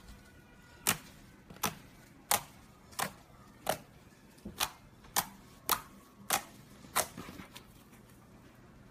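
Fingertips poking into a flat sheet of metallic blue slime, each poke giving a sharp pop: about ten pops, roughly one every two-thirds of a second, stopping about seven seconds in.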